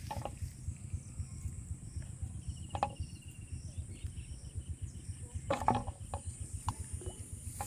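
Insects buzzing steadily at a high pitch over a low rumble, with a few short knocks or splashes; the loudest comes about five and a half seconds in.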